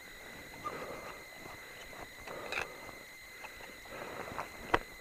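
Ice axes planted and crampons kicked into deep snow during a climb: irregular crunches of snow, with one sharp click near the end.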